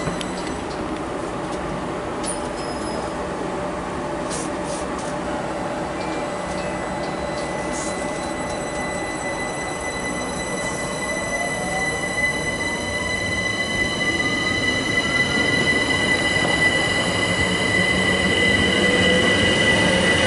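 London Overground class 378 Electrostar electric multiple unit running past, with a steady high tone and its traction-motor whine rising in pitch as it gathers speed. The wheel and running noise grows louder from about halfway through as the carriages pass.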